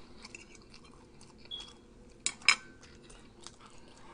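Metal cutlery clicking and scraping against a plate in small scattered taps, with a brief ring about a second and a half in and two sharper clinks about two and a half seconds in.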